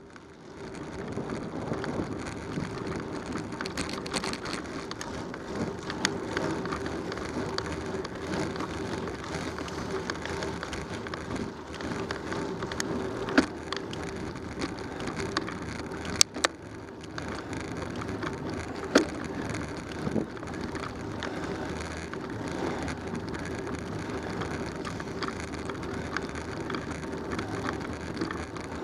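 Bicycle rolling along a paved road: steady tyre noise with a gritty crackle, small rattles and a few sharp clicks from the bike.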